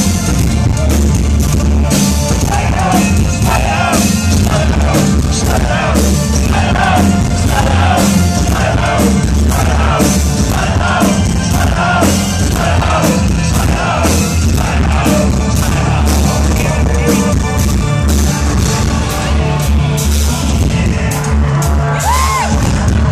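Live industrial band playing loud, with a heavy electronic beat and bass under a shouted, sung vocal that is strongest through the first half.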